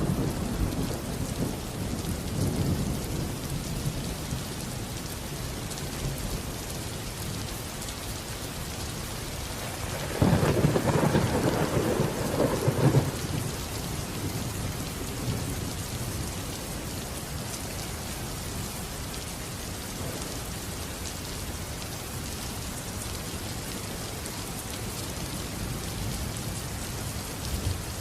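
Steady rain falling, with thunder rumbling: a low rumble dying away over the first few seconds, then a louder clap and rumble starting suddenly about ten seconds in and lasting about three seconds.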